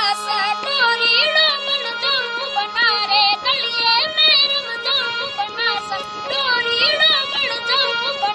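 A high voice singing an ornamented folk melody in short, wavering phrases over a steady low drone.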